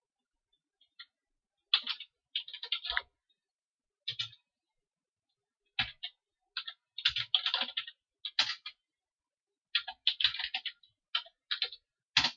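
Computer keyboard typing: short bursts of quick keystrokes with pauses of a second or two between them.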